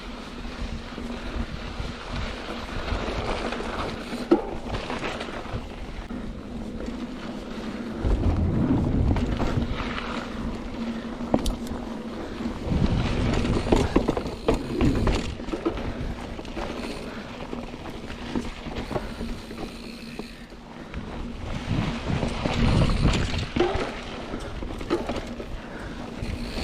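Wind buffeting the microphone while a mountain bike rolls along a dirt trail, with heavy low rumbles surging several times.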